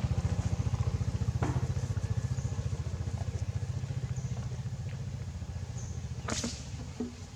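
A small engine running with a fast, even pulse, slowly fading; a sharp click near the end.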